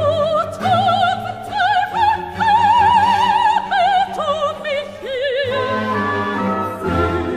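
Background music: a high operatic voice singing sustained notes with wide vibrato over orchestral accompaniment.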